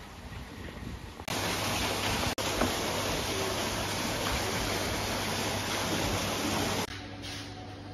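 A loud, steady rushing noise that cuts in sharply about a second in, drops out for an instant, and stops abruptly near the end.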